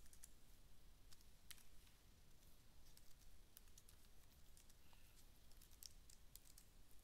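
Faint, irregular clicking of keys on a computer keyboard as code is typed.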